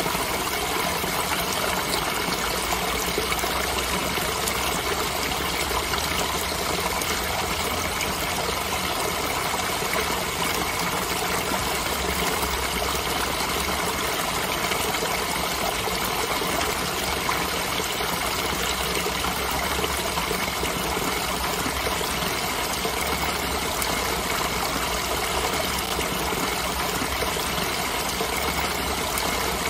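Creek water trickling and splashing steadily as it spills over a small rock ledge into a shallow pool.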